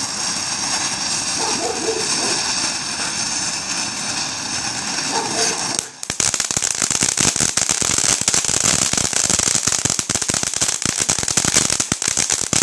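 Boomer Fireworks ground fountain burning with a steady rushing hiss of sparks. About six seconds in, after a momentary break, it changes to dense, rapid crackling from crackling stars.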